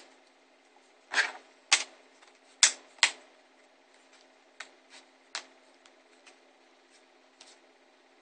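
Sharp clicks and taps from handling a freshly reassembled Samsung Galaxy SL i9003 smartphone while it is tested, with five louder ones in the first three seconds and lighter, sparser ones after.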